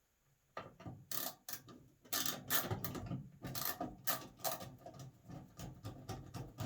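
Screwdriver driving screws back into the dryer's sheet-metal panel: a run of irregular clicks and rattles that starts about half a second in.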